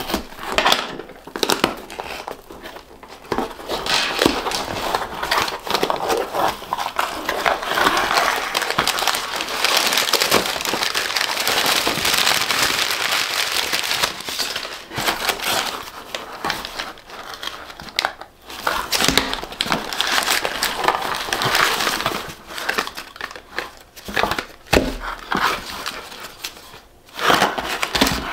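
Cardboard shipping box being opened and handled, and crumpled brown kraft packing paper rustling and crinkling as it is pulled out. The rustling comes in stretches with a few short pauses.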